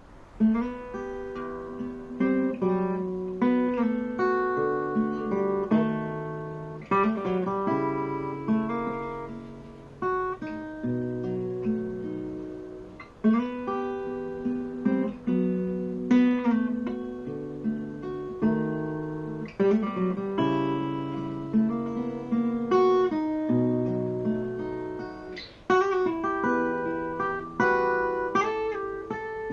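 Acoustic guitar music: plucked notes and chords, each ringing out and fading before the next.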